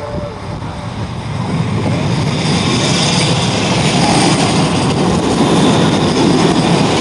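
Manchester Metrolink M5000 tram (Bombardier Flexity Swift) approaching and running past on street track. The rumble of its wheels on the rails swells over the first few seconds, then holds steady and loud as the cars go by.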